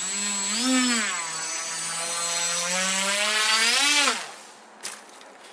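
Small electric motor of a K'nex RC ski vehicle whining under throttle, its pitch rising about a second in, dipping and holding, then rising again before it cuts off about four seconds in. A single sharp click follows near the end.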